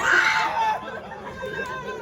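A high-pitched voice holding a wavering, sung-sounding note that fades after about a second.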